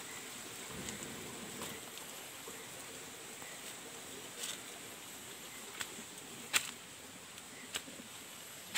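Soft rushing of breath blown into a small wood fire for the first second or two, then a few sharp snaps and clicks, the loudest about two-thirds of the way through, over a faint steady high-pitched whine.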